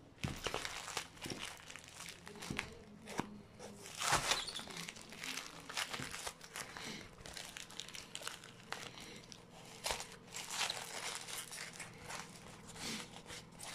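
White paper-towel wrapping on a parcel crinkling and rustling as hands peel and tear it away, in irregular bursts that are loudest about four seconds in and again around ten seconds.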